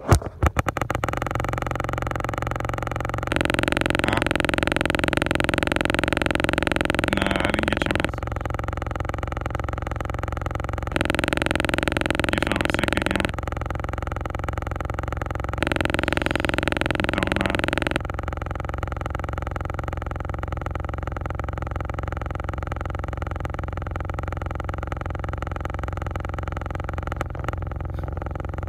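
Steady drone and low rumble inside a car's cabin. Three times, for a few seconds each, a louder hiss joins it and cuts off suddenly.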